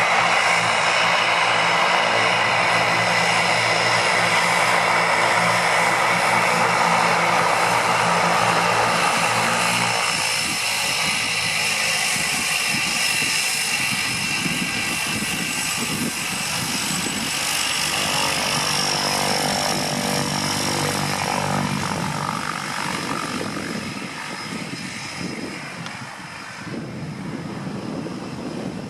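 Cessna 208 Caravan's Pratt & Whitney PT6A turboprop at takeoff power: a steady propeller drone with a high turbine whine on top. It is loud for about the first ten seconds, then gradually fades as the plane moves away.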